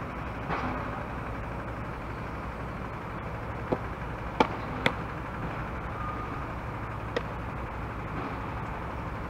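Softball smacking into a catcher's mitt about halfway through, two sharp pops close together, with a fainter snap a little before and another near the end, over a steady low outdoor rumble.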